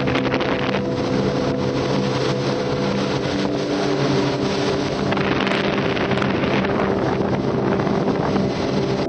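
Motorboat running at speed, with heavy wind noise buffeting the microphone. The sound cuts off abruptly at the end.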